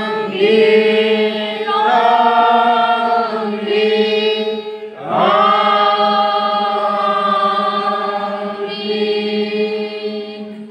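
Women's voices singing a slow liturgical response into a microphone, in long held notes over about four phrases, the last and longest one ending near the end.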